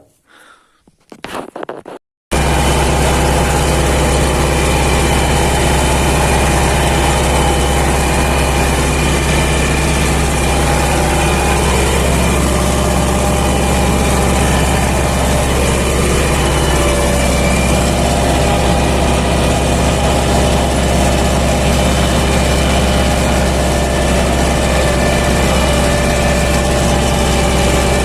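MTZ-80 tractor's D-240 four-cylinder diesel running steadily and loud, cutting in suddenly about two seconds in after a moment of faint low talk.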